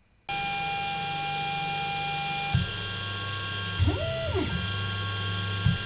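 3D printer stepper motors whining through a print. Steady tones jump to a new pitch with a click at each change of move, twice. Near the middle there is one sweep that rises and then falls.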